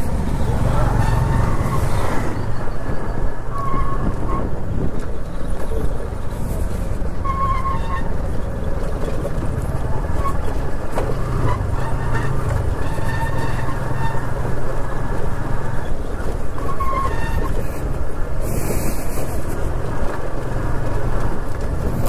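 TVS Apache RTR 160's single-cylinder engine running steadily at low speed, heard from on the bike, with road and wind noise as it rides over a rough, broken stone-paved dirt track. A few short, faint high tones come through now and then.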